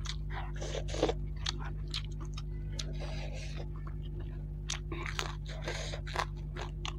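Close-up chewing and crunching of spicy fried rohu fish and rice, with many sharp wet mouth clicks and short crunches, over a steady low electrical hum.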